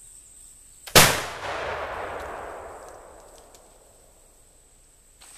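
Lyman Deerstalker flintlock rifle firing a patched round ball with a black-powder charge, about a second in. A faint click of the lock and pan comes just before the loud shot, which echoes and dies away over about two seconds. A steady high insect buzz runs behind it.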